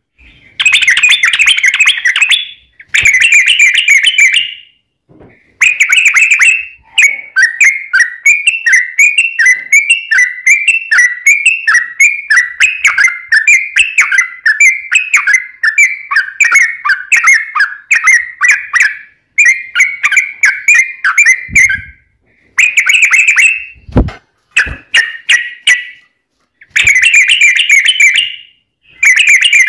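Yellow-vented bulbul singing loud, rapid, bubbly chattering phrases. In the middle it runs into one long unbroken trill of notes lasting about fifteen seconds, its long 'ropel', then drops back to short bursts. Two brief low knocks come about three-quarters of the way through.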